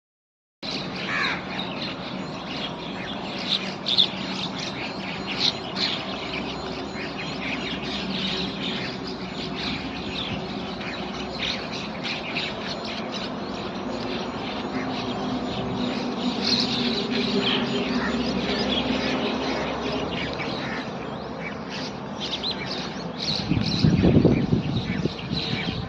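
Many birds chirping and calling, with crow-like caws among them, over a steady low hum. A loud low rumble comes about 24 seconds in.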